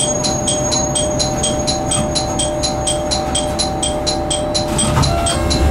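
A bell ringing rapidly at about four strikes a second, over the steady low hum of a diesel railcar idling at a standstill. Near the end a deeper rumble comes in.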